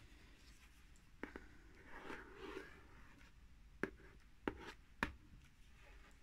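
Quiet handling of a hot glue gun while laying glue lines on board under denim fabric: a soft rustle of fabric about a second in, then three sharp clicks from the glue gun being worked.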